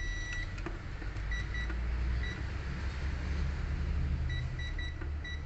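Short high beeps from a digital multimeter, one longer beep at the start and then quick pips in clusters of one to four, as it measures the graphics card's memory rail, which reads a too-low resistance of about 12 ohms. Under the beeps runs a steady low hum.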